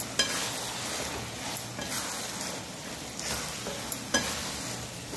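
Spatula stirring fried cauliflower florets through thick, sizzling Manchurian sauce in an alloy kadai over a high flame, with a few sharp clicks of the spatula against the pan.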